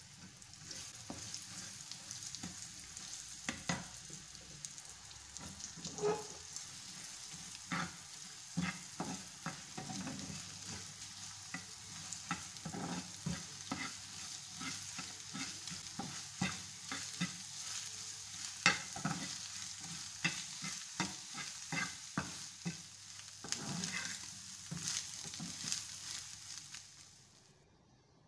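Beaten egg and potato fries sizzling in oil in a non-stick frying pan, with a steady hiss, while a metal spatula stirs and scrapes them, giving frequent sharp clicks and taps against the pan. The sizzle drops away near the end.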